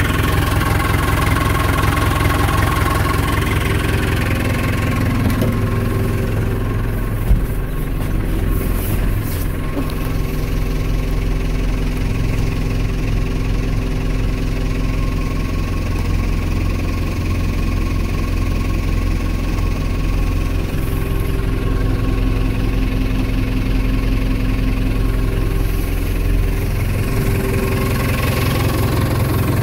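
A 1994 JCB 3CX backhoe loader's four-cylinder diesel engine idling steadily while still cold, shortly after a cold start in about −13 °C frost. A single short knock sounds about seven seconds in.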